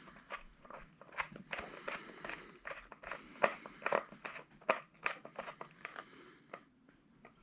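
Plastic air box parts being handled and pulled apart by hand: a quick irregular run of sharp clicks, crackles and crunches that thins out near the end.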